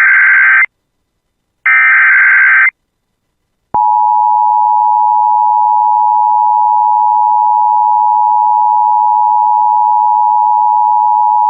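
Emergency Alert System header: a burst of warbling two-pitch digital data tones ends just under a second in, and a second one-second burst follows a second later. After a second's pause, the steady EAS attention tone begins about four seconds in, signalling an incoming severe thunderstorm warning.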